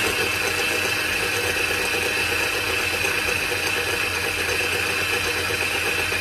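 Small electric grinder running steadily at full speed, its motor whining with a fine rattle as it grinds softened chiles and a splash of broth into a paste.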